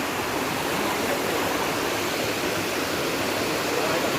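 Steady rushing of a stream's flowing water, an even unbroken noise.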